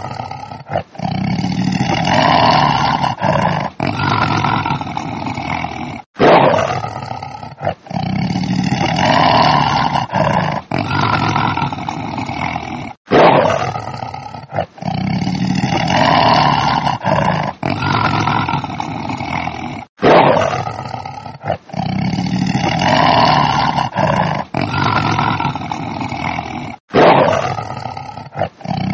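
A tiger roaring, the same recording repeated about every seven seconds; each roar starts loud and sudden and runs on for several seconds with short breaks.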